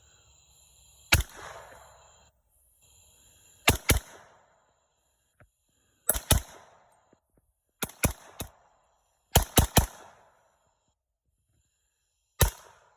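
Suppressed .300 Blackout Sig MCX Rattler firing subsonic rounds: about a dozen sharp shots, some single and some in quick pairs and triplets, each followed by a short echo.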